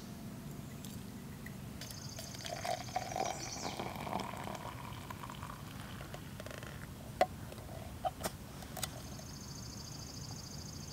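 Water poured into a stainless steel tumbler, with a rising pitch as it fills, then a few sharp metal clinks. A high buzzing trill sounds in the background twice.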